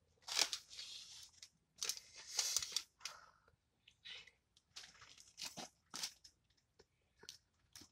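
Crispy fried fish crunching and tearing as it is pulled apart by hand and chewed, in irregular bursts.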